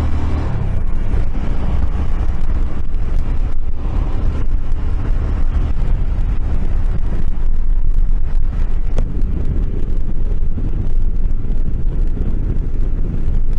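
Steady wind rush on the microphone while riding a Suzuki C50T Boulevard, with the bike's engine running underneath. The wind comes past a newly fitted windshield that the rider finds no improvement, even worse.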